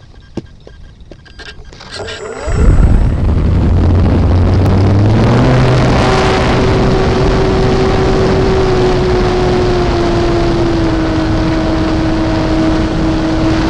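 Parkzone Corsair RC plane's electric motor and propeller, heard from a camera on the plane: after a few light clicks, the motor comes up to full throttle about two and a half seconds in and runs with a steady whine that rises a little as the plane rolls down the road and takes off. Heavy propeller-wash and wind noise on the onboard microphone.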